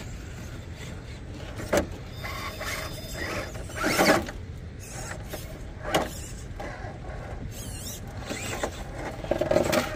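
RC rock crawler's electric motor and geared drivetrain whining as it crawls over rocks, with a few sharp knocks against the rock, the loudest about four seconds in.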